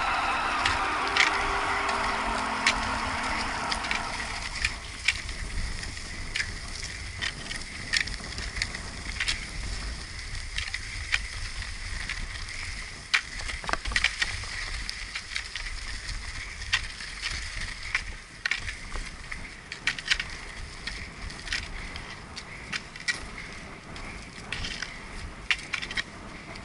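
Pneumatic-tyred cross skates rolling over loose gravel with a steady gritty crunch. Nordic pole tips strike the stones in sharp, irregular clicks, over a low rumble.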